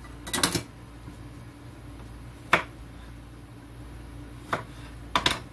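A few scattered sharp clicks and knocks of kitchen utensils being handled on a countertop: a short cluster at the start, a single crisp one midway and a couple near the end, over a steady low hum.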